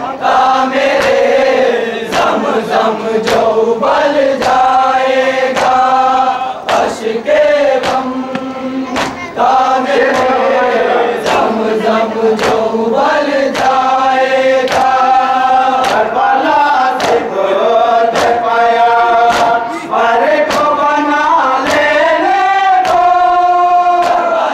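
A group of men chanting a noha, a Shia lament, over a steady rhythm of sharp slaps: hands beating on chests in matam.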